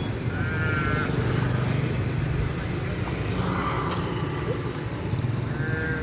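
Steady low rumble of rushing floodwater, with two short wavering high-pitched animal calls, one just after the start and one near the end.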